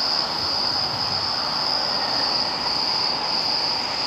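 Steady chorus of crickets, an unbroken high-pitched trill, over a constant hiss of outdoor noise.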